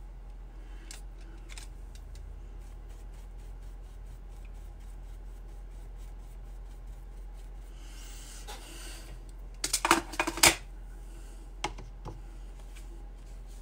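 Faint brushing on watercolor paper, then a quick cluster of sharp clicks and taps about ten seconds in as the paint tin and brush are handled.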